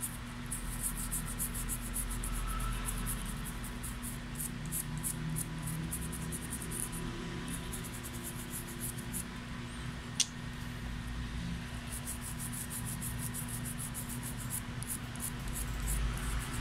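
Toothbrush bristles scrubbing a steel BGA reballing stencil wet with thinner, in quick back-and-forth strokes that brush off excess solder balls. The scrubbing pauses in the middle, and there is a single sharp click about ten seconds in.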